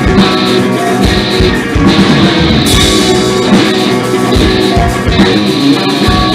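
Live rock band playing loud: electric guitars over a drum kit with steady, regular drum hits.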